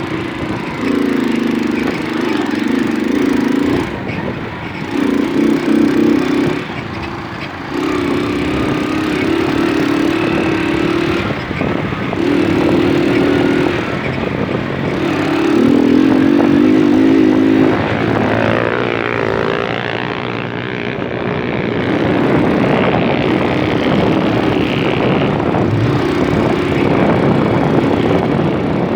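Moped engine running under way, its note rising and falling in repeated stretches of a few seconds as the throttle is opened and eased, over a steady rushing noise.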